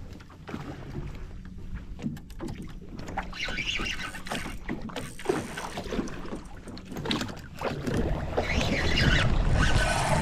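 Water sloshing and knocking against the hull of a small flat-bottomed boat, with scattered short knocks and clicks. Wind buffets the microphone, louder near the end.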